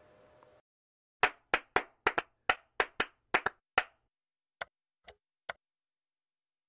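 Logo sting of sharp, clap-like percussive hits: about ten in a quick, uneven rhythm, then three softer ones about a second later.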